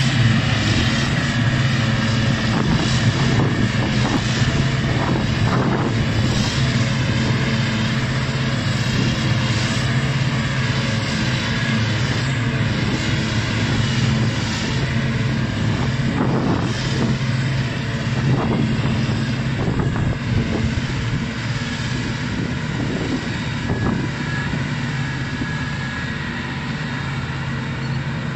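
Claas Jaguar self-propelled forage harvester at work chopping grass, its engine and chopper running with a loud, steady drone and a rushing noise of crop being blown through the spout, and a tractor engine running alongside. The sound eases slightly in the later part as the harvester turns away.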